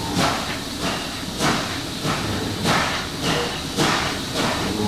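NSW C38 class steam locomotive 3801 working under steam, its exhaust chuffing about twice a second over the rumble of the train, as heard from the leading carriage.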